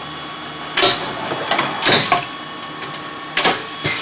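A 1987 CNC machining centre with a tool changer running, with a steady high whine and three sharp mechanical clunks about a second or more apart.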